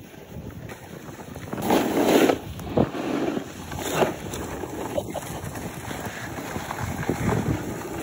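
Snowboard sliding and scraping over snow in uneven surges, with wind on the microphone. There is a short thump nearly three seconds in.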